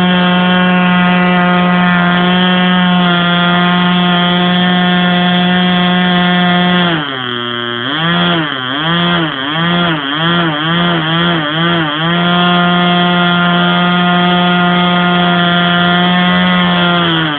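A 25-year-old model aircraft engine on a ground test run, a steady high buzz at high throttle. About seven seconds in it is throttled back, then blipped up and down about seven times in quick succession, each blip shorter than the last. It then runs at high throttle again and is throttled back near the end.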